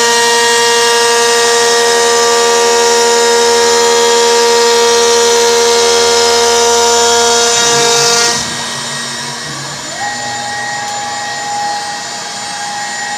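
CNC router spindle milling a furniture facade panel: a steady high machine whine with a loud cutting hiss, run at the toughest settings tried. About eight seconds in the cut stops and the sound drops. A couple of seconds later a quieter, higher steady whine takes over.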